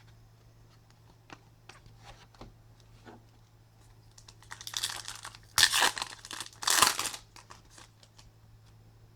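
Topps Chrome baseball card pack wrapper being crinkled and torn open, with two loud rips a little past halfway, after a few light clicks of cards being handled.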